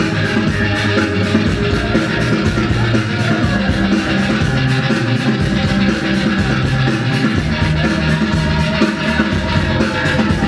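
Loud music with a steady beat, rock-like with guitar, playing for the dancers.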